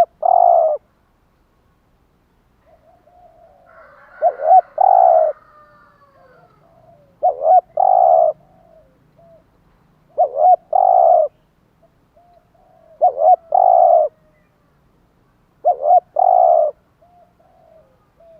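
Spotted dove cooing its song over and over: six phrases about three seconds apart, each two short coos followed by a longer one, with softer notes in between.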